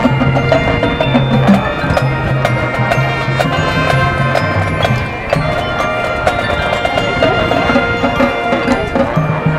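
High school marching band playing its field show opener: brass and winds over held low notes, with many short mallet and percussion strikes from the front ensemble throughout.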